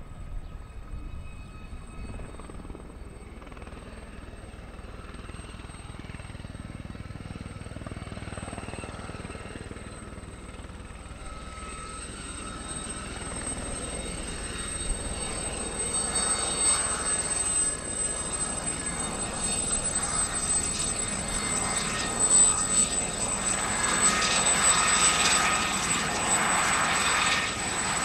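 Aérospatiale Gazelle helicopter in a low hover and then flying low past, its single turbine engine, main rotor and fenestron tail giving a steady high whine over a rushing rotor noise. It grows steadily louder as it comes closer.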